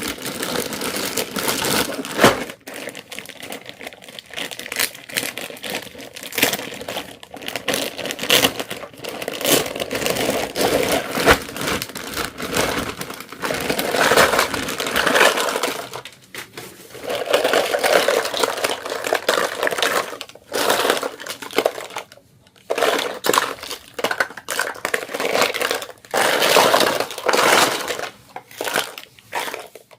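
Plastic packaging crinkling and rustling with small hard plastic pieces clicking and tapping, many quick irregular sounds close together, as miniature toys are unboxed.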